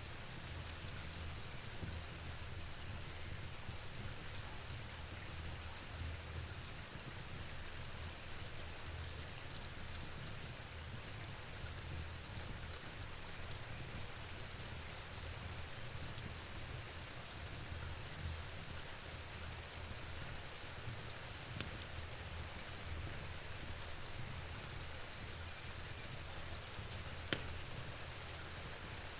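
Steady rain falling, an even hiss over a low rumble, with a few sharp ticks now and then, the clearest two near the end.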